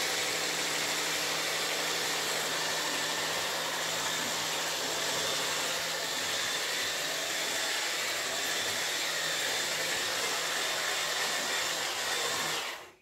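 Handheld electric mixer running at a steady speed, its wire whisks beating pancake batter of flour, eggs and sugar in a bowl, with a constant motor hum. It stops suddenly near the end.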